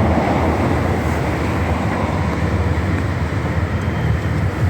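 Steady vehicle rumble and road noise, a low, even hum without distinct knocks or bangs.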